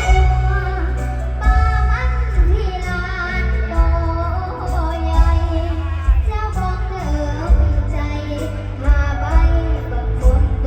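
A child singing mor lam, the Isan Thai folk style, the voice sliding and wavering in pitch over amplified backing music with a heavy bass beat.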